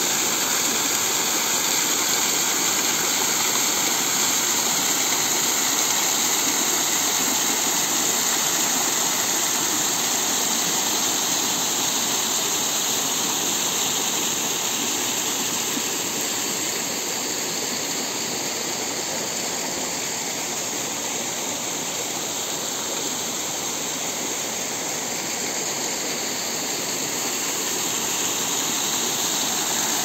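Small waterfall spilling over a stone wall onto rocks: a steady rush of falling, splashing water. It eases off slightly about halfway through and swells again near the end.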